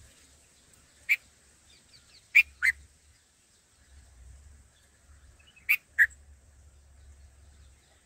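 Bulbul calling close by: five short, sharp call notes, one about a second in, then a quick pair, then another quick pair about six seconds in.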